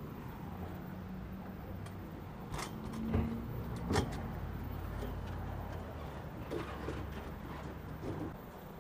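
A few knocks and clacks from a replacement 2008-2012 Ford Escape hood panel being turned over and set down on a folding hood stand, the sharpest about four seconds in, over a low steady rumble.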